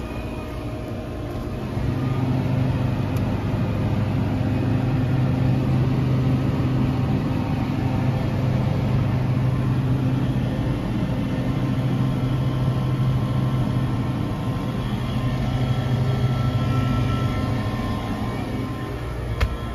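Steady low machine hum of freezer display cases' refrigeration units, growing louder about two seconds in, with a single sharp click near the end.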